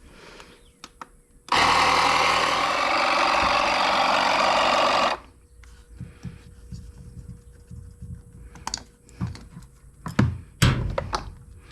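Compressed air being pumped into a garden tractor's front tire through its reinstalled valve stem, a loud steady rush lasting about three and a half seconds from a second and a half in, followed by scattered knocks and clicks of handling.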